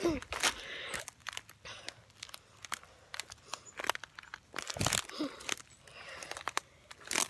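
Irregular crunching and rustling of footsteps through brush, mixed with clicks and rubbing from a handheld phone being jostled.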